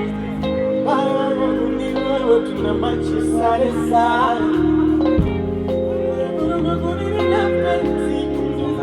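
A band playing live with a singer: sustained bass notes and chords under a sung melody, without a break.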